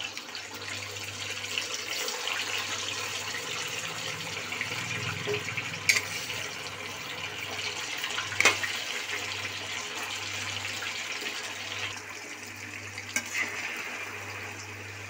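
Paneer cubes sizzling and crackling as they fry in hot oil, with a few sharp clicks about six and eight and a half seconds in and again near the end. The sizzle eases a little about twelve seconds in.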